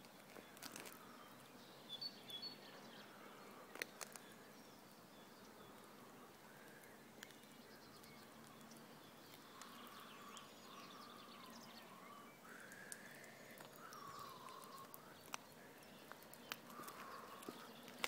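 Quiet outdoor ambience with faint bird calls, mostly short rising and falling whistles in the second half, and a few scattered soft clicks.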